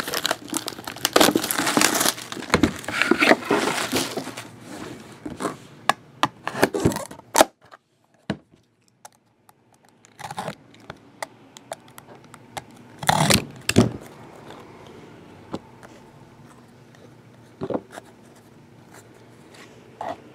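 Plastic wrapping crinkling and tearing as a sealed box of football trading cards is opened, for the first few seconds. Then quieter handling, with a few short rustles and taps as the cards are taken out.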